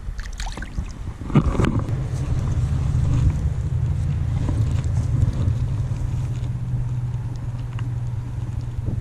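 Low, steady wind rumble buffeting the camera microphone. A couple of brief knocks come in the first two seconds.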